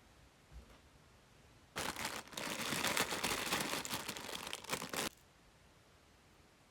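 Toy packaging being crinkled and handled: a dense crackle lasting about three seconds that starts about two seconds in and stops abruptly, with a faint soft knock just before it.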